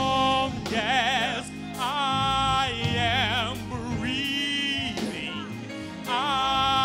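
Gospel vocal group singing live: a male lead voice with heavy vibrato and melodic runs, held notes and turns, over sustained backing music.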